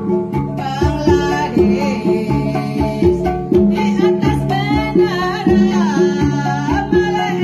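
Dayak Kanayatn jonggan music: a row of small kettle gongs and large hanging gongs playing a fast repeating pattern, with a voice singing a wavering melody over it from about half a second in.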